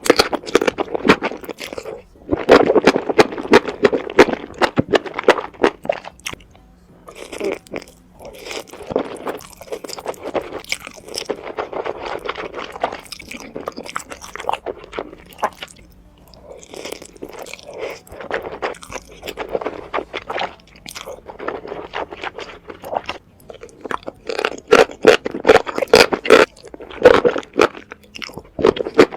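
Close-miked eating: a person chewing and crunching food with many quick wet mouth clicks, in busy runs broken by short pauses, loudest near the start and again near the end.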